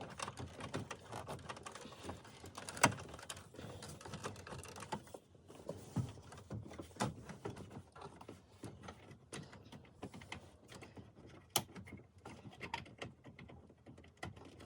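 Irregular small clicks and taps of plastic dashboard parts being handled while an instrument cluster is fitted, with one sharper click about three seconds in.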